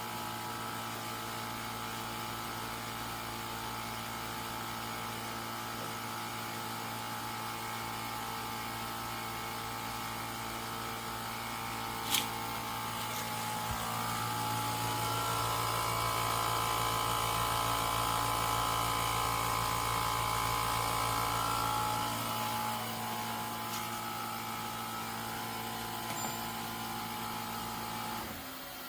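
Portable air conditioner running: a steady mechanical hum made of several tones, louder for a stretch in the middle, with a single sharp click about twelve seconds in.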